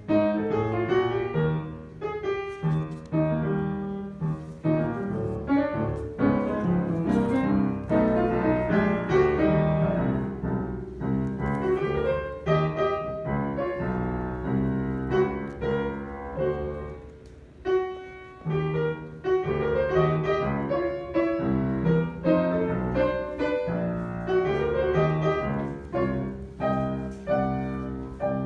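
Piano playing: a steady flow of melody notes over chords, easing off briefly a bit past halfway before going on.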